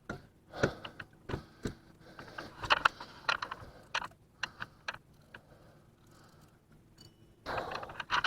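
Irregular mechanical clicks, knocks and rattles, with a louder scraping stretch near the end.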